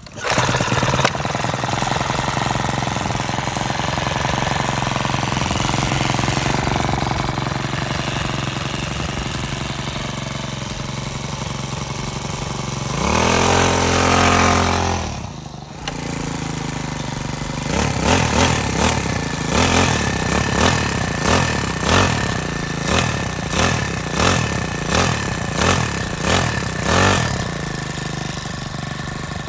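Four-stroke petrol engine of a large-scale F.planning RC car running with a fast, chattering beat. It comes in suddenly at the start and holds a steady idle, is revved up hard once about halfway, then blipped on the throttle in a quick run of short revs, about two a second, before settling back near the end.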